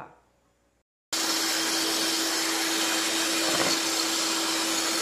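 Electric mixer running at a steady speed, its beaters whipping cream in a bowl. The steady motor noise carries one constant hum and cuts in abruptly about a second in.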